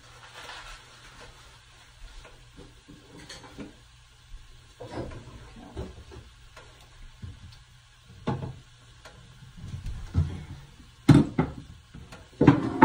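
Kitchen clatter of things being put away: scattered knocks and bumps of cupboard doors and containers, growing louder toward the end with a cluster of sharp clacks.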